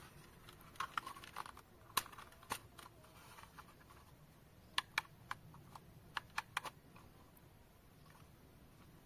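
Sharp plastic clicks and snaps from a handheld drone remote controller being unfolded, its fold-out antennas and grips swinging into place. The clicks come in two clusters, one about a second in and another about five seconds in.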